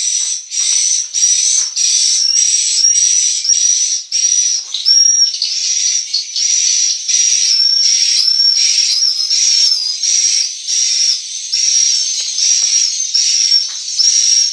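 Edible-nest swiftlet calls: a dense, continuous twittering of short, high chirps repeating about twice a second, the sound that fills the inside of a swiftlet house.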